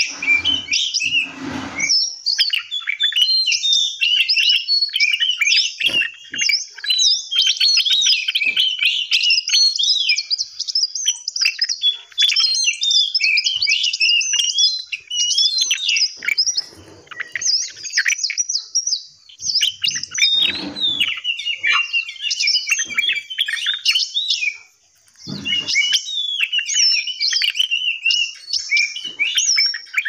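Many small cage birds chirping and twittering at once, quick high calls overlapping almost without a break.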